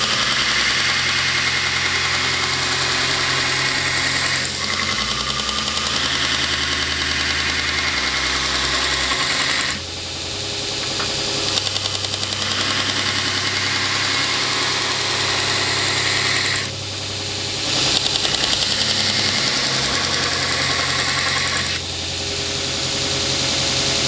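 Belt grinder running while a knife blade held in a steel grinding jig is pressed against the sanding belt to grind the bevel: a steady motor hum under a harsh grinding hiss. The hiss eases off briefly three times in the second half.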